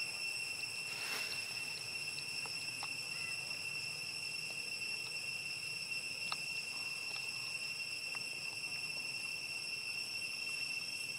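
Insects droning in a steady high-pitched chorus that holds one unchanging pitch throughout, with a few faint ticks.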